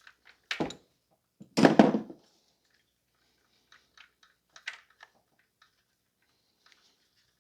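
Hand tools and metal fittings being handled while working on a fuel line connection: a knock about half a second in, a louder clatter around two seconds in, then a few light clicks.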